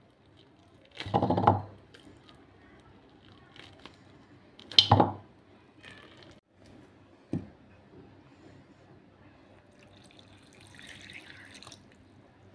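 Steel spoon scraping soft bael fruit pulp into a bowl, with two louder strokes about a second and five seconds in and a few small clicks. Near the end comes a soft splash of water poured onto the pulp.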